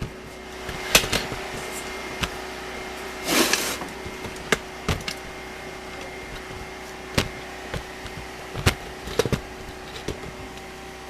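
Scattered clicks and knocks of test equipment and probe leads being handled, with one brief rustling scrape about a third of the way in, over a steady hum from the running generator.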